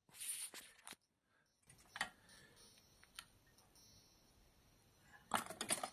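Handling noise from a model jet engine built from aluminium beverage cans: scattered light clicks and rustles, with a louder cluster of clicks near the end. There is no steady running sound; the model is being handled, not run.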